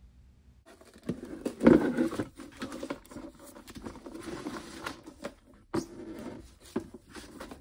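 Irregular rustling, patting and small clicks of a macerator pump's plastic parts being handled during disassembly, with one louder bump about two seconds in.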